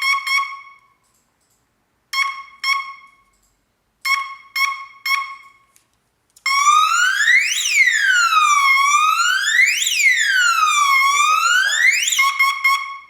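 EARYKONG T90 burglar alarm panel beeping in short groups of two and three, then its siren wailing for about six seconds, rising and falling in pitch roughly every two and a half seconds, and beeping again near the end.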